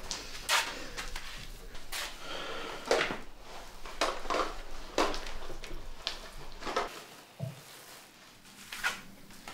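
Scattered clicks, knocks and rustles of small objects being handled, about a dozen short sounds at uneven intervals.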